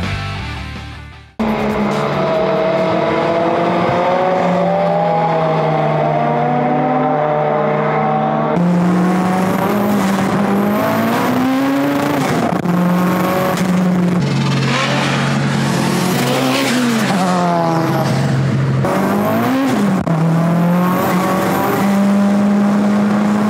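Tuned front-wheel-drive Toyota Starlet's engine revving hard, heard from inside the cabin, its pitch climbing and dropping several times as the front tyres spin and squeal on a wet track. The wheelspin and torque steer keep the car from running straight. Music fades out about a second in.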